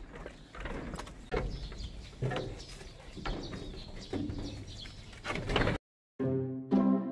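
Rustling and knocking in a pen of Holstein calves, with short animal calls about once a second. Near the end the sound cuts out briefly and music begins.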